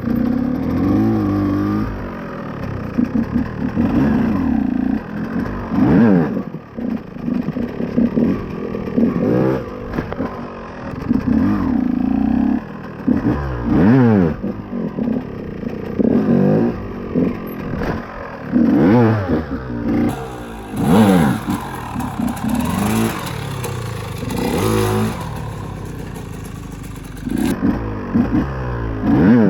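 KTM EXC 125 two-stroke enduro engine revving hard and backing off again and again, its pitch climbing and dropping with throttle and gear changes. A steady hiss joins in for several seconds in the second half.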